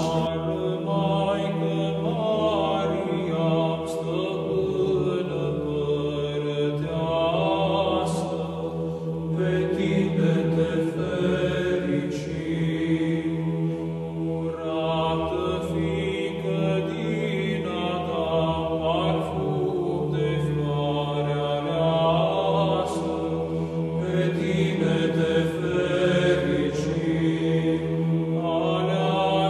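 Church chant: voices singing a slow melody over a steady held drone note, in the manner of Orthodox Byzantine chant.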